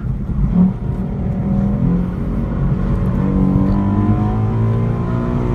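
2012 Ford Mustang's 3.7-litre V6 working hard at high revs, heard from inside the cabin. Its pitch dips briefly about half a second in, then climbs back and holds high.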